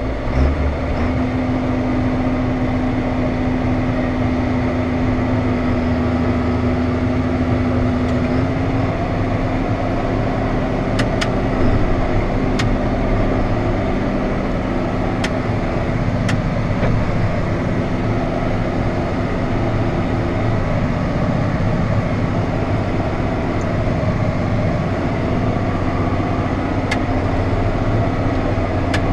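Heavy harvest machinery's diesel engine running steadily under load. It makes a continuous drone with a steady hum; one higher hum drops away about nine seconds in, and there are a few faint ticks.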